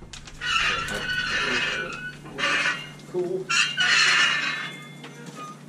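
Roller pushed over the epoxy-soaked pipe liner in its plastic sleeve, squeaking and crinkling in two passes, the first lasting about a second and a half and the second about a second, near the middle.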